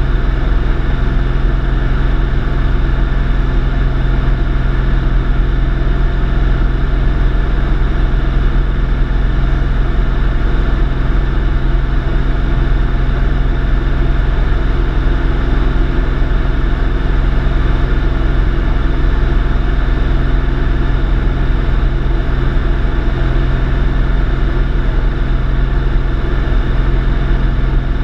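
Steady drone of a single-engine light airplane's engine and propeller, heard from inside the cabin in level flight, with no change in pitch or power.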